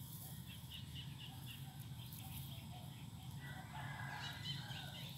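Faint rooster crowing in the background: one drawn-out call from about three seconds in, over a low steady hum.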